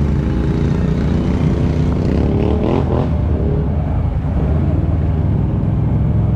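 ATV engine running while riding, with the revs rising briefly about two to three seconds in.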